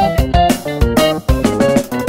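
Background music: plucked guitar over a drum kit with a steady beat.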